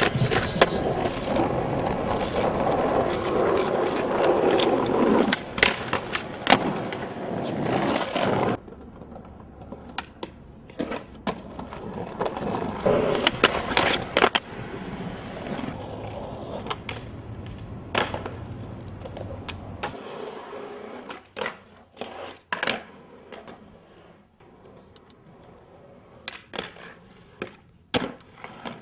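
Skateboard on concrete: wheels rolling loudly for several seconds, then cutting off, followed by sharp pops, clacks and landings of the board on ledges and pavement.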